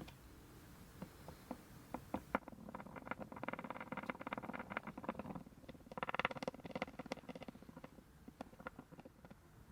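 Light scraping and rapid clicking from hand work on epoxy resin for casting, with scattered single clicks and two denser runs about three and six seconds in.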